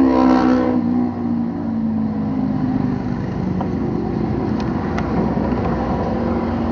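Road vehicle engine running in traffic, its pitch dropping right at the start and then holding lower and steadier, over continuous road noise.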